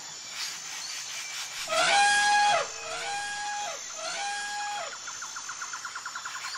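Three high elephant trumpet calls, each rising, holding a clear tone and dropping away, the first the loudest. About five seconds in, a fast chirping trill begins.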